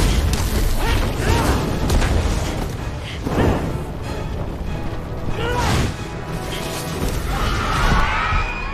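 Film battle soundtrack: dramatic score under repeated fire-blast whooshes, booms and crashes.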